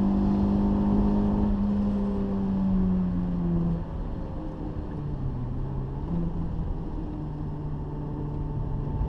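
Renault Clio 182's 2.0-litre four-cylinder engine running hard at high revs, heard from inside the cabin over road and tyre noise. About four seconds in the engine note drops and eases off, then it pulls again at lower revs, its pitch stepping up near the end.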